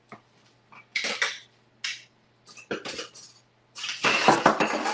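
Kitchen handling noises: a few short clattering and scraping sounds, then a louder, steadier noisy stretch of about a second near the end.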